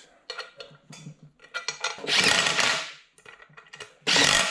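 Cordless impact driver snugging the nuts on the bolts of a tubular upper control arm, in two short runs: about a second long starting two seconds in, and a shorter one near the end. Before them, a few light clinks of loose bolts, washers and nuts being handled.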